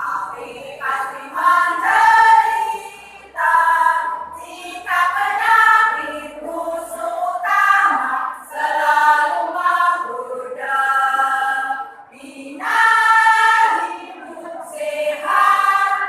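Choir singing, in phrases broken by short pauses for breath.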